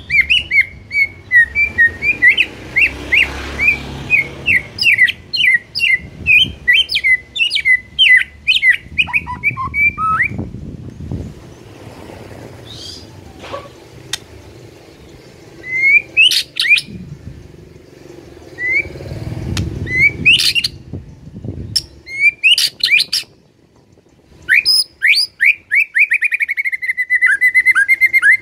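White-rumped shama (murai batu) singing: a fast run of sharp repeated chirps, then a few scattered rising whistled notes, ending in a quick rolling trill.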